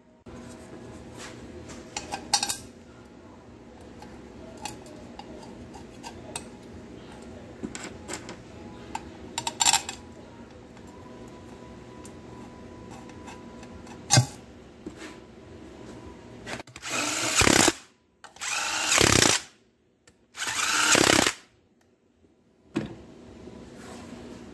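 A cordless power driver running down the bolts of a transmission's two top covers, in three runs of about a second each near the end. Before that, scattered metal clinks as the covers and bolts are handled.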